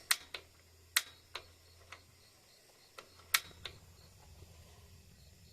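Campfire wood crackling: about eight sharp, irregular pops in the first four seconds, then only faint background.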